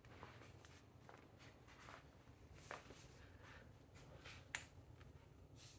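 Near silence: room tone with a handful of faint, sharp clicks at irregular intervals, the loudest about three-quarters of the way through.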